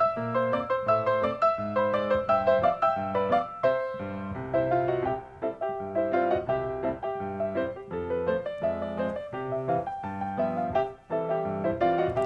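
Background piano music, a quick melody of many notes over a lower accompaniment.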